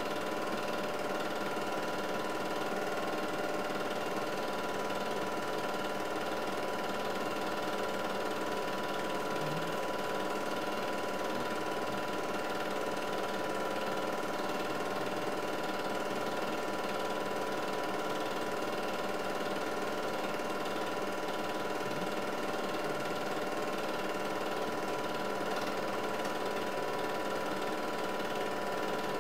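8mm film projector running steadily: a constant mechanical motor and film-transport sound with a steady hum of several tones, unchanging throughout.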